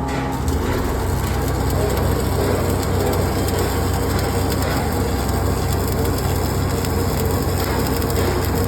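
A steady crackling noise over a low, even hum.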